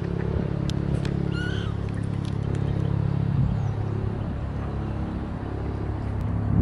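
Helicopter flying overhead, its rotor and engine giving a steady low drone. A bird gives a short rising call about a second and a half in.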